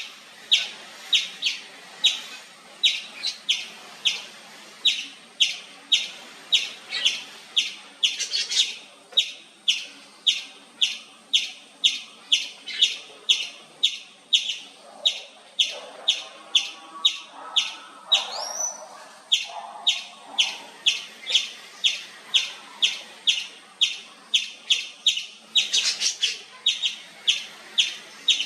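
Indian palm squirrel (three-striped palm squirrel) giving a sharp, high chirp over and over, about twice a second without a break. A few fainter, lower calls sound in the background partway through.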